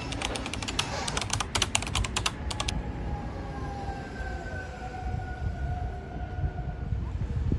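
Street traffic rumble. A quick run of sharp clicks plays for the first few seconds and then stops. After it comes a faint whine that falls slowly in pitch.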